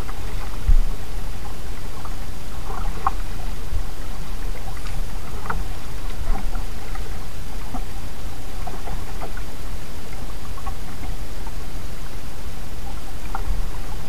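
A kayak being paddled: a steady low rumble of water and wind noise with scattered small splashes and drips from the paddle, and a couple of low knocks about a second in and near the end.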